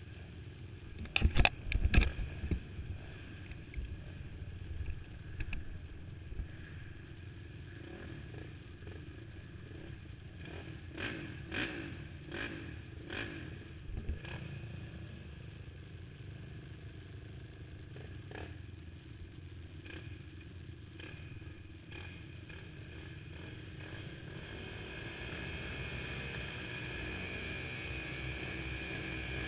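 Race quad engines, among them a Honda TRX450R, running with a steady low rumble. A cluster of sharp knocks about a second in is the loudest part, more knocks come around the middle, and a steadier, higher-pitched engine drone builds near the end.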